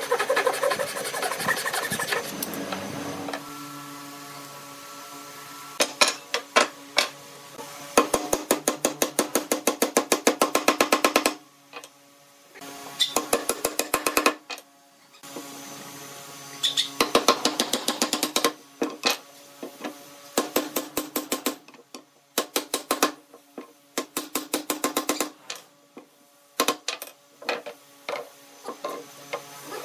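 A hand pull saw cutting a pine board for a few seconds, then runs of quick, evenly spaced mallet blows knocking wooden chair-frame joints together, with short pauses between the runs.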